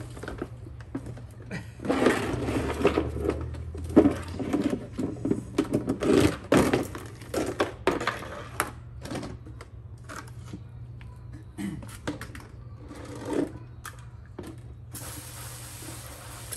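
Plastic cat litter trays being handled on paving stones: a run of knocks, clatters and scrapes, busiest in the first half. Near the end a hiss of water from a garden hose spray nozzle starts.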